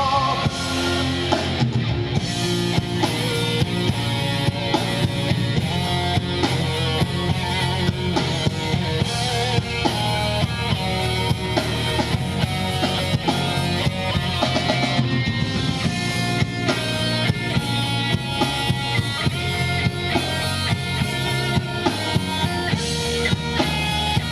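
Rock band playing an instrumental passage: drum kit with a steady beat, electric guitars and bass, no singing.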